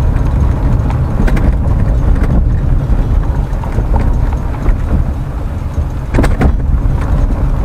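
Road noise inside a moving car: a steady low rumble of the tyres on a rough road, with a few knocks and jolts, the strongest pair about six seconds in.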